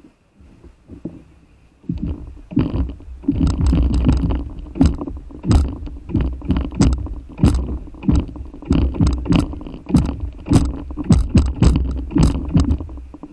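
Seawater slapping and sloshing against an inflatable paddle board right by the camera, with a low rumble and many sharp, irregular splashes. It starts about two seconds in.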